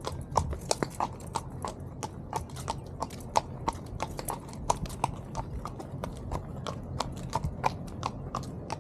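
Horse's hooves clip-clopping at a walk, an uneven run of sharp clicks, several a second.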